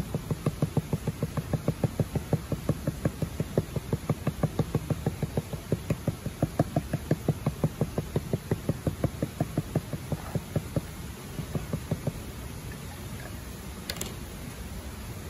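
Knife point stabbing rapidly and repeatedly through raw pizza dough into a wooden board beneath, docking the dough with holes: a fast, even run of knocks about five a second that stops about eleven seconds in, then a single click near the end.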